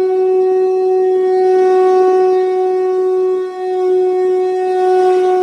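Conch shell (shankh) blown in one long, steady, held note, with a brief dip in loudness about three and a half seconds in.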